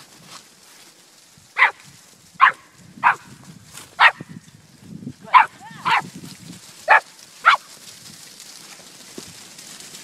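Young Pumi puppy barking: about eight short, sharp, high yaps spaced irregularly over some six seconds, barking at the sheep it is working.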